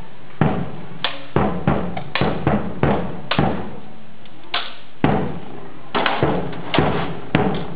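Staged medieval sword-and-shield fight: swords striking shields and each other in a quick, irregular series of about fifteen sharp knocks, some with a short ring.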